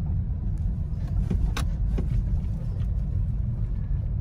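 Low, steady rumble of a car driving along a rural road, heard from inside the cabin. A few sharp clicks come around a second and a half in.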